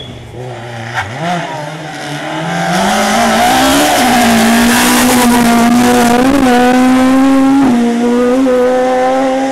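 Rally car engine revving hard as the car comes past. The pitch rises for the first few seconds, then holds at high revs with brief blips, loudest through the middle, with a rushing hiss of tyres on the loose road surface.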